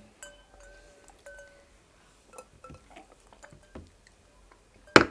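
Someone drinking water: a faint glassy ringing in the first second or so, soft gulps and small knocks, then one sharp knock near the end.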